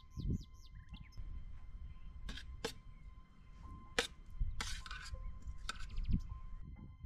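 A steel spoon clinking and scraping on a steel thali during a meal, with a few sharp clinks between about two and four seconds in and a short scrape near five seconds. Birds chirp near the start.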